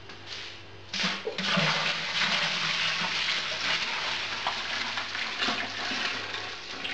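Corn mash wash poured in a thick stream from a plastic bucket into a stainless steel boiler, splashing steadily. The pour starts about a second in and eases off near the end.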